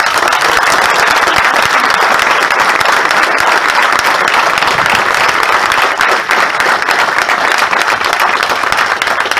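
A crowd applauding loudly, a sustained round of clapping that does not let up.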